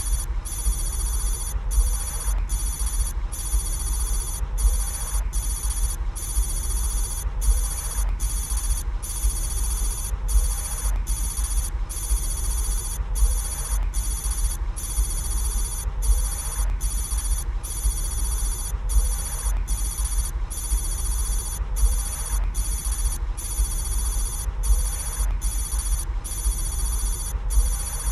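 Electronic soundtrack: a bright, high ringing tone that breaks off briefly about every second, over a steady deep hum.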